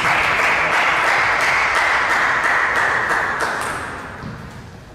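Spectators applauding a won point in a table tennis match, the clapping dying away near the end.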